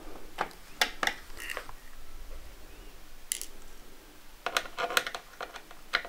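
Screwdriver backing a small screw out of a Dell Latitude 6320 laptop's bottom panel: scattered light clicks and scrapes, with a quicker run of clicks about four and a half to five seconds in.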